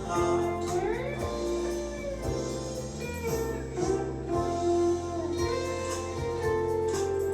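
Background music led by guitar, with plucked notes and sliding pitches.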